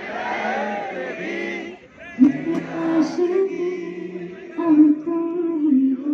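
A woman singing long, wavering held notes into a microphone, amplified through stage speakers. For about the first two seconds a denser wash of voices sits under her, then her solo line stands out alone.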